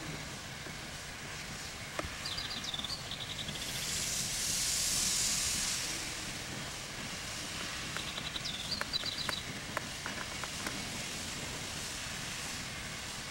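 Alco Type 70 steam locomotive letting off steam: a strong hiss lasting about two seconds, a few seconds in. A small bird chirps a quick run of notes twice, and there are a few light knocks.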